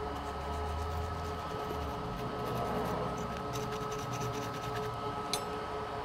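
A steady electrical hum with two even tones, with light clicks and taps of handling in the second half and one sharper click near the end.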